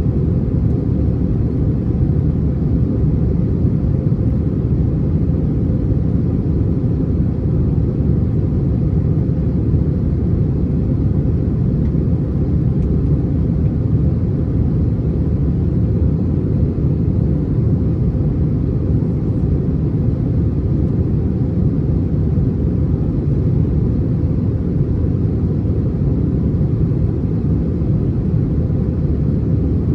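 Steady low rumble of an Airbus A321's engines and airflow, heard inside the passenger cabin.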